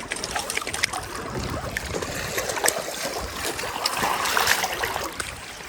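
River water running and trickling steadily, with a few faint clicks scattered through it.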